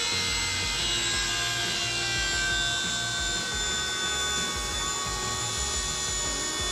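Electric fuel pump running submerged in test fluid in a fuel pump tester: a steady whine and hum that sinks slightly in pitch as the outlet valve is slowly closed and the pump is loaded up to its maximum pressure, about 110 PSI.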